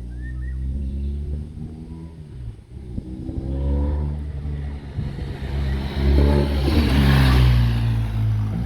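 BMW R 1250 RS boxer-twin engine through a MIVV SR-1 aftermarket exhaust, accelerating with its pitch climbing and falling back several times as the revs change. It is loudest about seven seconds in, with a rush of noise over the engine note.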